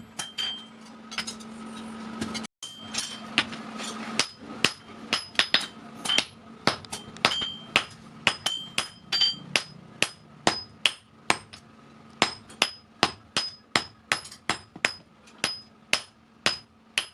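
Hammer blows on steel against an anvil, forging a vehicle axle into a hammer head: sharp strikes with a bright metallic ring, sparse at first and then about two a second. A steady low hum runs under the first few seconds.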